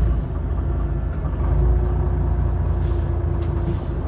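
City bus running, heard from inside the cabin: a steady low engine and road rumble, with a thin steady whine through the middle and faint light rattles.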